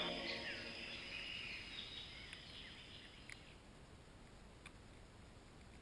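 Faint birdsong, a run of short chirps and warbles that stops about three and a half seconds in, followed by near silence with a few faint ticks.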